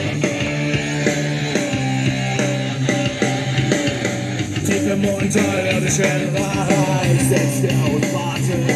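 Rock music with guitar played at full volume through a Gravastar Crazy Cool Bluetooth speaker.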